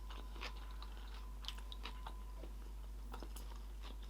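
Close-miked chewing of sushi rolls: wet mouth smacks and small crunchy bites, scattered a few times a second.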